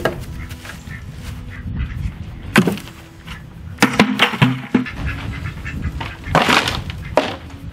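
Plastic milk crates and buckets thrown out of a chicken coop, landing one after another with hollow plastic clattering thumps on straw-covered ground, about half a dozen times. Ducks quack in between.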